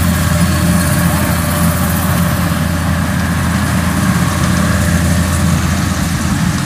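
Kubota DC-93 combine harvester's diesel engine running under load at a steady pitch as the machine cuts and threshes rice, a constant low drone with the clatter of the threshing gear above it.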